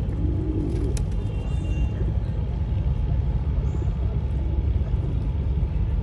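Steady low outdoor rumble, with a sharp click about a second in.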